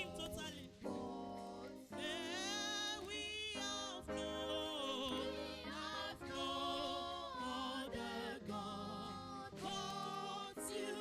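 Church choir singing with vibrato over steady low accompanying notes.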